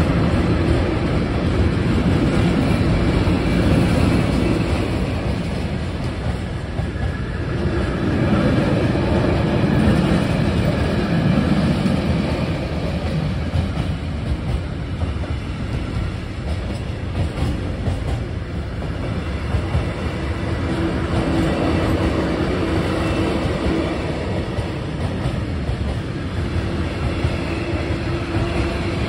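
Freight train wagons rolling past at close range: a steady loud rumble and clatter of steel wheels on the rails, swelling and easing slightly as the wagons go by. A faint steady tone joins about two-thirds of the way through.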